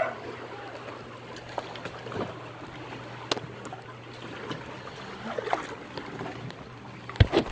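Shallow floodwater sloshing and trickling around a wooden boat, with scattered light knocks and a few sharp knocks near the end.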